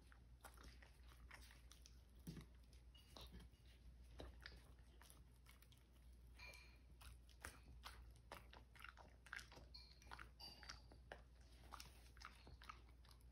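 Samoyed dog chewing mouthfuls of soft cake and smacking its lips: a faint, irregular run of short wet clicks.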